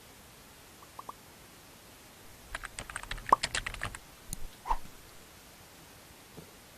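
A quick run of light clicks and taps lasting just over a second, starting about two and a half seconds in. A couple of faint clicks come before it and a single tap follows.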